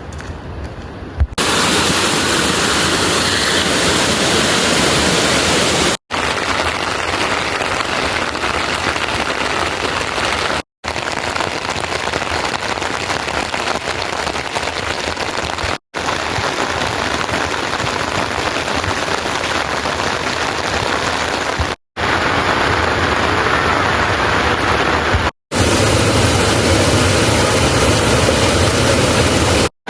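Heavy rain falling, a dense steady hiss, broken every few seconds by abrupt cuts to silence between takes.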